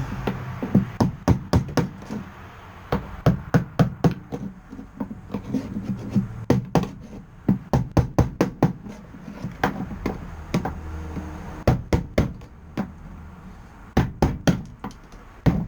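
Hammer blows on a cold chisel, chipping hardened bitumen sound-deadening off a classic Mini's steel floor pan, the insulation coming away in chunks. Sharp, irregular strikes come in runs of a few a second with short pauses between.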